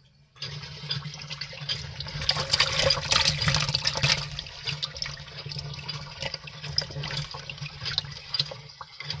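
A crowd of live catfish thrashing in shallow water in a plastic tub: a dense wet splashing and slapping that starts about half a second in and is loudest in the middle.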